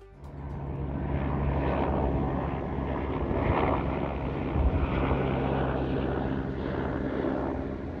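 Firefighting helicopter flying overhead with a water bucket slung on a long line: steady rotor and engine noise that builds over the first second.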